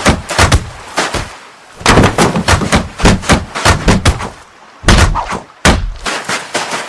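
Cartoon sound effects of a wooden crate bouncing and tumbling: rapid volleys of sharp knocks and bangs, with brief lulls between the volleys.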